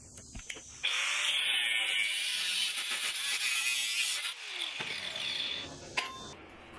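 Angle grinder with a cut-off wheel cutting through square steel tubing: a loud steady grind from about a second in, then the motor winds down with a falling pitch. A sharp metallic clink comes near the end.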